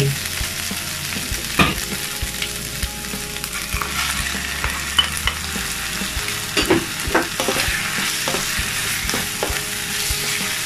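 Chicken strips, onion and just-added raw chicken liver sizzling in hot oil in a nonstick pan, stirred and tossed with a wooden spatula. The spatula scrapes and taps against the pan every now and then over the steady sizzle.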